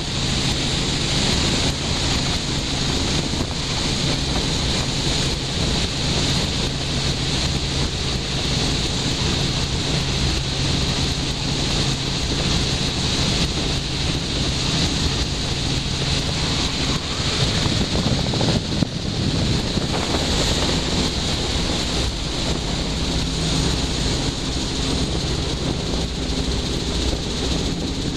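Robinson R44 helicopter in flight, heard from inside the cockpit: the steady drone of its six-cylinder piston engine and rotor, with wind rushing over the microphone. A higher steady hum comes in near the end as it comes down low for a beach landing.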